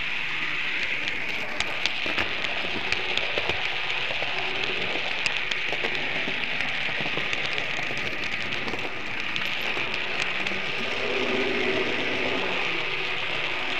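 Märklin model train running along the layout, heard from a camera riding on it: a steady hiss of wheels and motor with many small irregular clicks as it rolls over rail joints and points.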